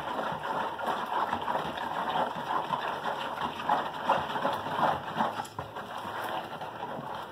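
Spatula stirring hot water and powdered laundry detergent in a plastic bowl, a continuous irregular swishing as the powder is dissolved.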